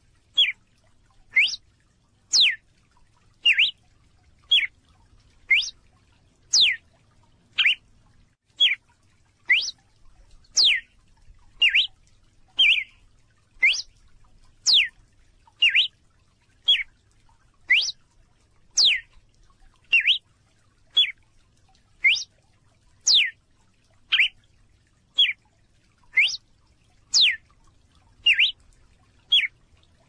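Red-cowled cardinal giving short, sharp call notes at an even pace of about one a second. The notes alternate between one that falls steeply in pitch and a shorter, lower one.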